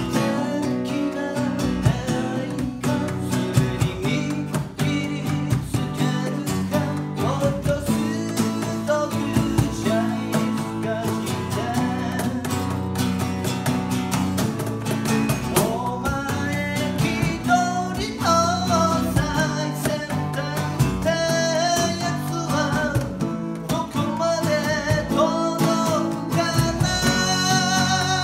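Man singing with a strummed acoustic guitar and a cajon keeping the beat. The voice comes through more strongly from about halfway.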